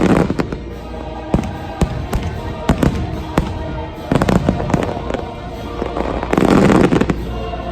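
Aerial fireworks bursting in repeated sharp bangs, with swells of dense crackling near the start, about four seconds in and again about six and a half seconds in, over the show's music soundtrack.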